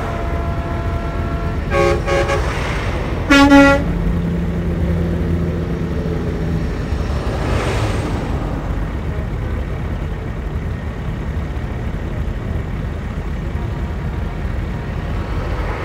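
Semi trucks rolling past with a steady low diesel rumble. A short double horn toot comes about two seconds in, then a louder horn blast a second later, and a truck passes by near the middle.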